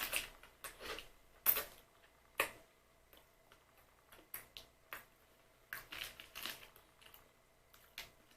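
Close-miked eating: crunching bites into fresh berry pie, the loudest in the first two and a half seconds and another cluster about six seconds in, with small clicks and ticks between.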